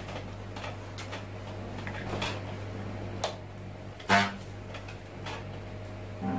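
Scattered light clicks and taps of hands handling test leads and gear on a workbench, irregularly spaced and the loudest about four seconds in, over a steady low hum.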